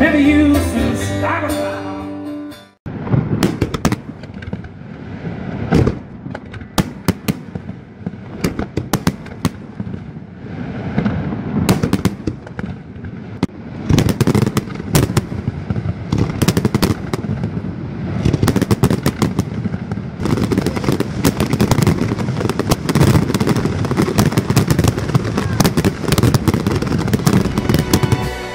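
Aerial fireworks display: a long run of sharp shell bursts and crackling, coming thicker and louder about two-thirds of the way through. It is preceded by a couple of seconds of live country-style band music that cuts off abruptly.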